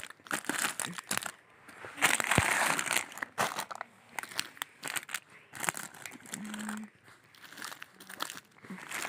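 Plastic and foil snack wrappers crinkling and rustling in irregular bursts as a hand shuffles through a pile of chip, biscuit and chocolate packets. The crinkling is loudest for about a second, starting two seconds in.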